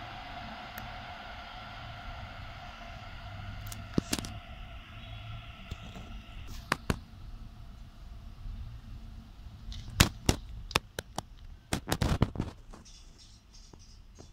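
An electric train gives a steady whine of several tones that fades out over the first six seconds. Then come a series of sharp, irregular clicks and knocks, clustered around ten and twelve seconds in.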